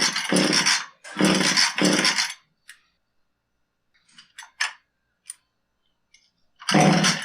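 Husqvarna 440 chainsaw being pull-started: the recoil starter cord is yanked and the engine cranks over without firing, two pulls early on, a few small handling clicks, then another pull near the end. The engine is flooded, which the mechanic puts down to a carburetor needle that was hung open.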